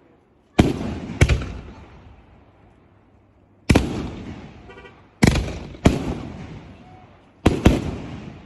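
100-shot Chinese firework cake bursting shells: six loud bangs at uneven gaps of about half a second to two and a half seconds, each trailing off in a long fading echo.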